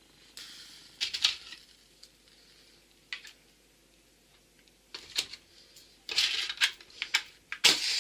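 Matches being struck on a matchbox: several sharp scratches and clicks, then a match flaring with a hiss about six seconds in and again near the end.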